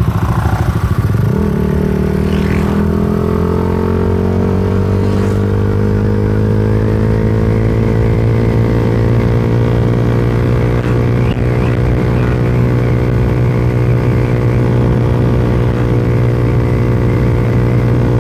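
Suzuki Satria FU 150 Fi's single-cylinder four-stroke engine through a Tritech Ronin Katana SE aftermarket exhaust, riding under throttle. The engine note jumps up about a second and a half in, then climbs slowly as the bike gathers speed and holds steady in the second half.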